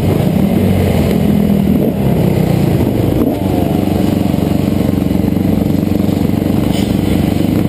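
Motocross dirt bike engines running at idle close to the microphone, steady, with a brief rev rising about three seconds in.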